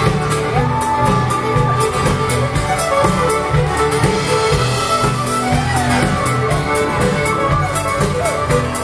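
Live fiddle band playing a traditional dance tune through stage speakers, the fiddles carrying the melody over a steady drum beat.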